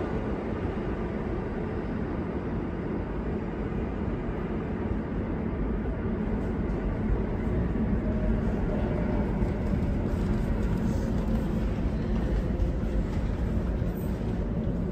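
Steady low rumble of a New York subway train, an R46 pulling out of the station and running off into the tunnel. The rumble swells slightly in the second half.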